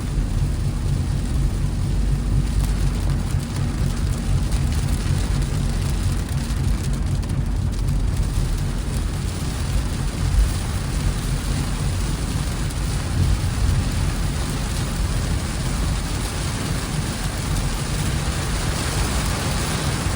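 Rain falling on a moving vehicle, over the steady low rumble of the vehicle driving. The rain hiss grows stronger near the end.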